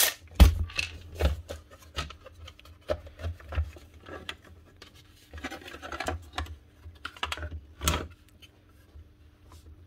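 Plastic housing parts of a dismantled Milwaukee M18CV cordless vacuum being handled and pulled apart by hand: scattered light clicks, knocks and scraping, with sharper knocks about half a second in and near eight seconds.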